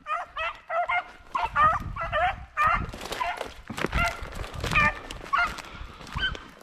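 Rabbit-hunting dogs giving short, high-pitched yelping barks, about two a second at first and then more spaced out, typical of dogs hot on a rabbit. Brush rustles and crunches under them.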